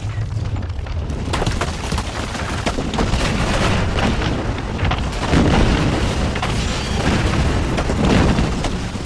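Earthquake sound effect: a continuous low rumble with crashing, cracking rock and masonry as a building is shaken apart, swelling louder about five and a half and eight seconds in.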